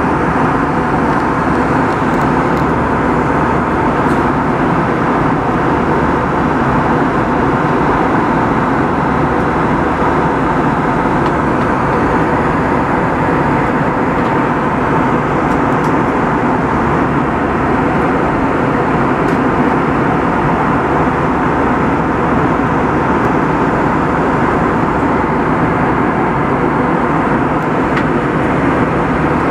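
Steady cabin noise of a jet airliner in flight: engine and airflow noise, even throughout with no change.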